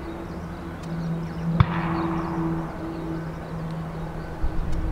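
Distant Boeing 737-800's CFM56-7B jet engines running at low thrust, a steady low drone. A single sharp click sounds about a second and a half in.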